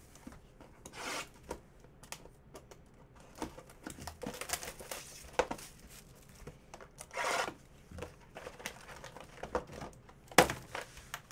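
Trading cards, card boxes and pack wrappers being handled on a table mat: a string of short rustles, slides and light taps of cardboard and wrapper, with a sharper tap a little over ten seconds in.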